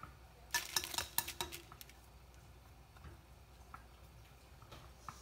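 Chopsticks stirring noodles in a pot, clacking against the pot's sides: a quick flurry of clacks from about half a second to a second and a half in, then a few scattered taps.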